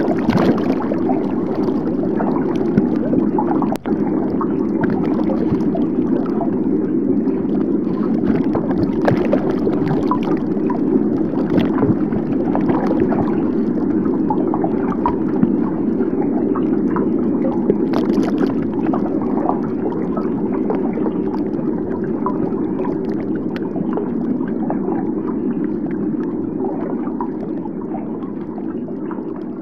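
Underwater ambience: a steady rushing noise with scattered small clicks and crackles, a brief dropout about four seconds in, fading out near the end.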